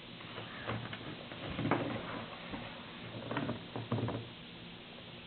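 Small charms and their metal chains being handled, giving a few scattered clicks and light rattles, with the loudest cluster in the middle.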